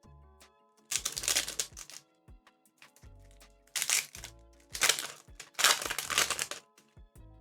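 Foil booster pack wrapper crinkling in four bursts, the last the longest, over steady background music.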